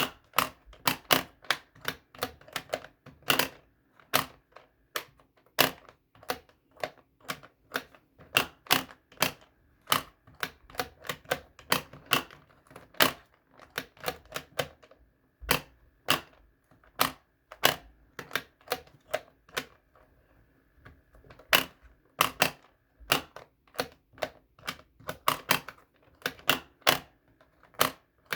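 Plastic pop-up animal toy being worked: a long run of sharp, irregular clicks and snaps, a few a second, with a short lull about two-thirds of the way through.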